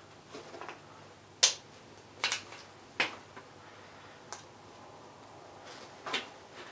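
Wire strippers snapping through wire insulation: a handful of sharp, separate clicks about a second apart.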